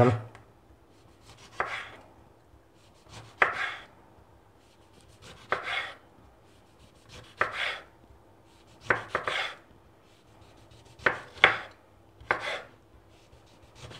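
Kitchen knife slicing a lemon, rind on, into thin slices: separate short cutting strokes, one every second or two.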